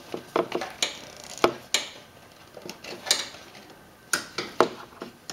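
Scattered, irregular clicks and knocks of a plastic funnel being worked into place under a lawn tractor's fuel filter, bumping against the clamped vise grips and the engine parts around it.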